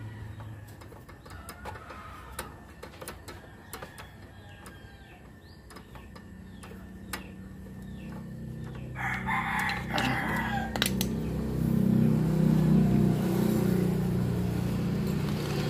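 A rooster crows once about nine seconds in, over small clicks of wires and a screwdriver being worked into the terminals of a lathe's reversing drum switch. A low hum, like a motor, builds from about halfway and is loudest near the end.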